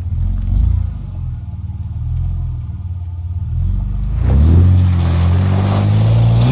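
Four-wheel-drive's engine working under load, then revving up about four seconds in, its pitch climbing steadily and holding high.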